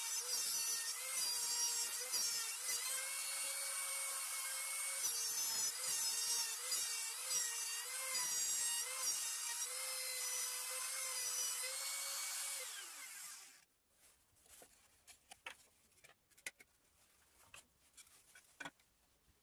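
Plunge router on a circle-cutting trammel cutting a circular hole through plywood: a steady high motor whine whose pitch wavers as the bit bites. About two-thirds of the way through it is switched off and winds down, leaving only a few light knocks as the cut-out disc is handled.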